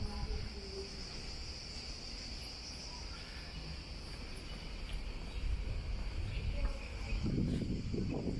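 A steady, high-pitched chorus of insects in the trees, with a low rumbling noise coming in near the end.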